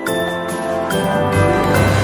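Background Christmas-style music with jingle bells shaking on the beat; a low bass part comes in about halfway through.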